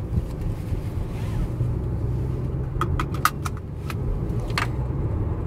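Steady road and engine rumble heard inside the cabin of a 2015 Toyota Camry while driving. A quick run of light clicks comes a little past the middle, and one more about a second later.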